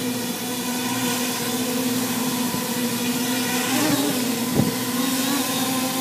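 Custom-built quadcopter's electric motors and propellers humming steadily while it hovers low, the pitch wavering as it corrects about four seconds in. A brief knock comes just after.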